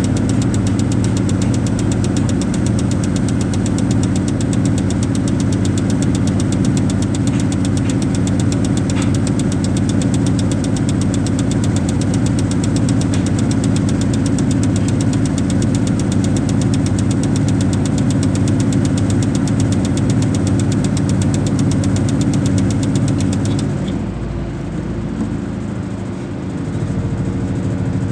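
Diesel engine of a Terex 160-2 mobile crane running steadily with a hard, knocking note while the crane lowers a suspended load. About three-quarters of the way through, the engine eases off to quieter running.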